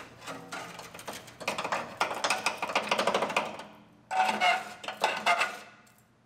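Rapid metallic clattering and knocking of rusty sheet-steel frame-rail pieces being worked loose, in two bursts split by a short pause about four seconds in; the second burst opens with a brief ring of struck metal.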